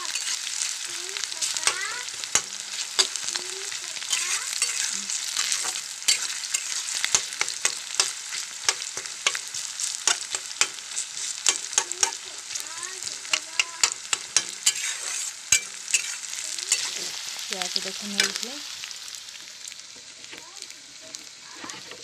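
Sliced onions sizzling as they fry in oil in a steel kadai, with the spatula scraping and clicking against the pan as they are stirred. The sizzle and clicks fade out near the end.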